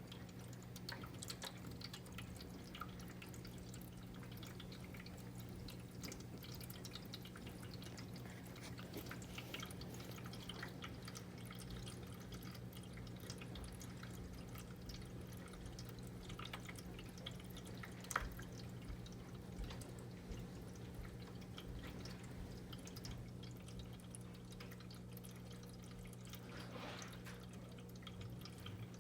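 Pet water fountain trickling and dripping over a low steady hum, with scattered small taps and splashes and one sharper tick about 18 seconds in.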